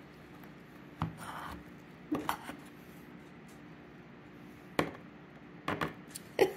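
Knife cutting through a pecan fruitcake in a cake tin, the blade knocking and scraping against the tin in a handful of short, uneven clicks.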